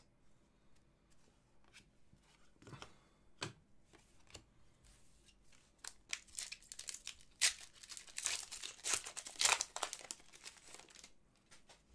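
Foil trading-card pack wrapper being torn open and crinkled, in a dense stretch of crackling in the second half, after a couple of light clicks from handling.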